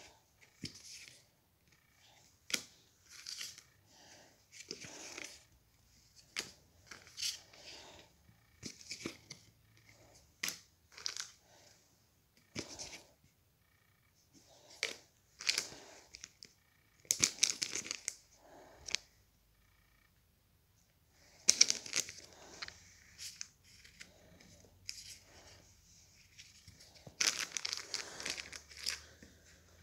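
Paper trading cards being handled: cards sliding, flicking and tapping against each other in short irregular bursts, with stretches of crinkling, densest near the end as a foil card pack is picked up.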